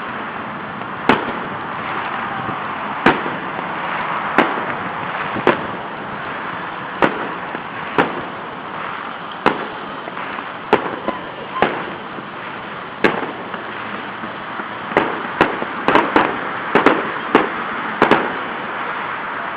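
Fireworks going off: sharp bangs at irregular intervals, roughly one every second or so, bunching into a quick run near the end, over a steady background hiss.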